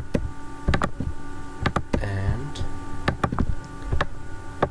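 Computer mouse clicking: a handful of short, sharp clicks at irregular intervals as blocks are selected and connected, over a steady faint electrical whine of several tones.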